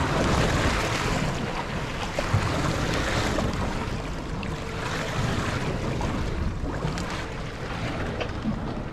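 Steady wind buffeting the microphone over choppy sea, with waves washing and slapping against a small boat's hull.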